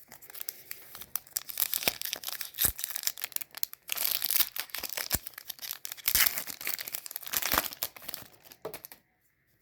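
Plastic wrapper of a basketball trading-card pack crinkling and tearing as it is opened by hand, a dense run of crackles that stops about nine seconds in.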